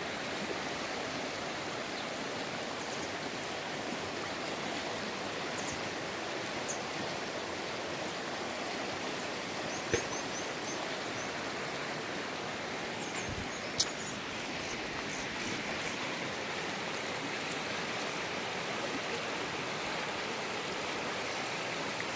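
The Ganga flowing: a steady rush of running water. Two short sharp clicks stand out about ten and fourteen seconds in, and a few faint high chirps come and go.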